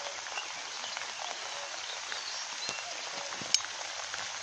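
Light rain pattering on pond water and vegetation as a steady hiss, with a few short high chirps scattered through it and one sharp click about three and a half seconds in.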